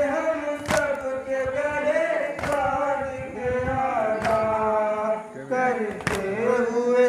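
Men's voices chanting a Shia noha (mourning lament) together in long, held sung lines. A sharp slap comes about every two seconds, about four times, from hands striking chests in matam.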